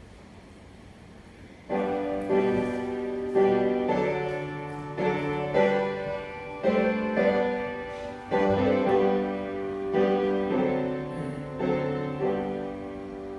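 Church piano playing a slow hymn introduction, chords struck about once a second and left to ring. The playing starts about two seconds in, after a quiet moment, and eases off near the end.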